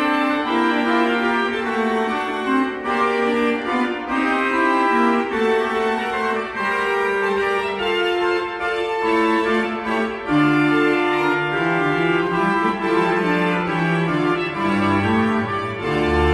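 Pipe organ playing French Baroque music in several voices, the notes moving along quickly. Lower notes join about ten seconds in, and a deep bass note sounds near the end.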